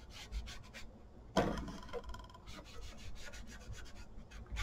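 Sheets of craft paper rustling and rubbing as hands fold and handle journal pages. There is a run of short rustles, with one sharper, louder one about a second and a half in.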